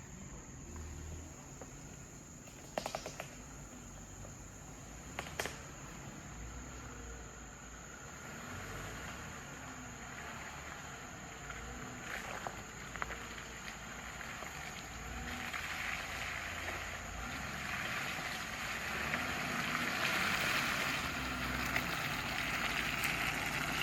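Jeep Rubicon engine running low as it creeps along a muddy trail. There are two sharp clicks a few seconds in, and a rising rush of noise over the last several seconds.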